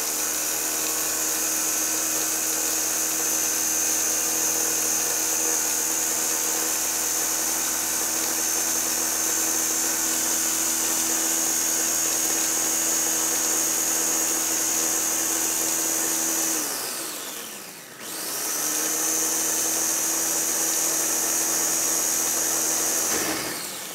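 Electric mini chopper grinding whole spices that are still coarse into a fine masala powder, its motor running steadily with a high whine. About 17 seconds in it spins down with falling pitch, starts again a second or so later, and spins down again near the end.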